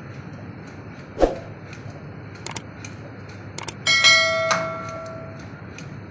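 A few knocks and clicks, then a metal object is struck and rings with a clear bell-like tone that fades over about a second and a half, over steady background noise.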